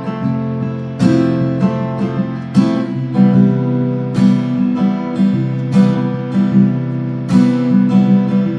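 Guitar strummed in chords, each strum ringing on into the next.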